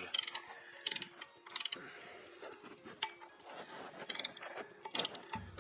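Ratchet wrench clicking in several short bursts of rapid clicks as the rear sprocket's nuts are run down and tightened.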